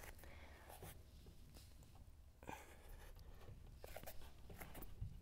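Near silence, with faint scattered taps and rustles of bare feet walking up a wall into a handstand.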